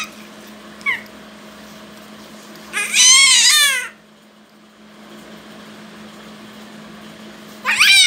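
Baby's high-pitched squeals: two short chirps in the first second, then two loud drawn-out squeals that rise and fall in pitch, about three seconds in and near the end.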